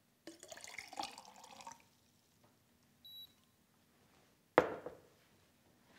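Water poured from a glass carafe into a glass mug for about a second and a half. A short high beep follows, then the carafe is set down with a sharp knock, the loudest sound.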